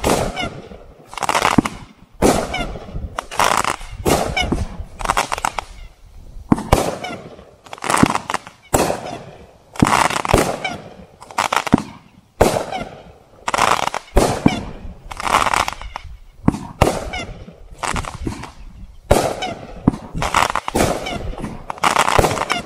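"Pharaonic" 500-gram firework cake firing in steady succession: sharp shots and aerial bursts about once a second, each fading out before the next.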